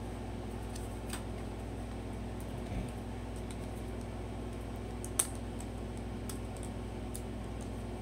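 Fingernails picking and scratching at the tape seal on a cardboard box flap: scattered small clicks and scrapes, with one sharper click about five seconds in. A steady low hum runs underneath.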